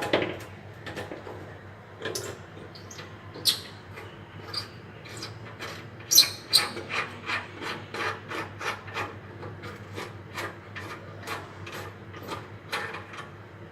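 Repeated short scraping and rubbing strokes on the metal underside of a gas stove as it is worked open. The strokes are sparse at first, then come about two a second, with the loudest about six seconds in.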